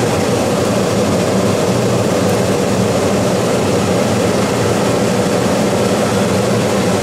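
Dometic Brisk Air II 15,000 BTU rooftop air conditioner running with its fan on high: a steady, loud rush of air over a low, even hum.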